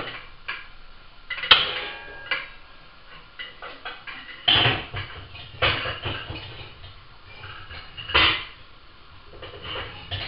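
Stainless steel pots and pans clanking as they are put away into a low kitchen drawer: a handful of separate knocks, the loudest about one and a half seconds in, followed by a brief metallic ring.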